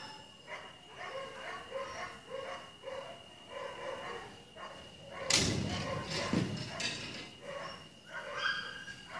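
Siberian husky vocalising in a run of short, pitched whines and yips, about two a second, then a loud thump about five seconds in.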